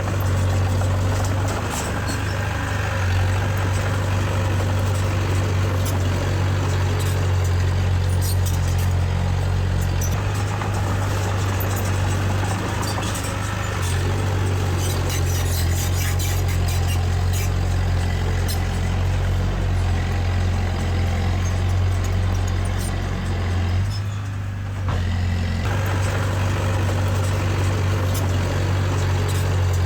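Heavy diesel engine running steadily, with scattered clanks and rattles over the drone and a brief drop in level near the end.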